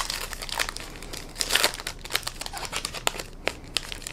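Wrapper of a 2018 Topps Big League baseball card pack crinkling and tearing as it is pulled open by hand: a run of irregular crackles, busiest about a second and a half in.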